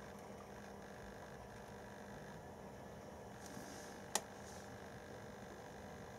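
Märklin E44 H0 model locomotive running slowly on digital control: a faint, steady electric hum with a light hiss, and one sharp click about four seconds in.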